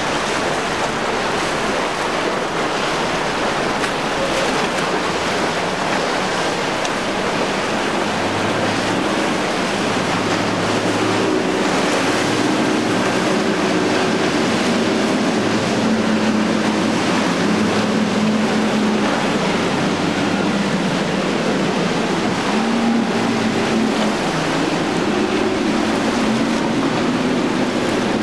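Suzuki outboard motor running under way on a center-console boat, over the rush of churning water and waves, with wind on the microphone. The engine hum becomes more prominent about a third of the way in.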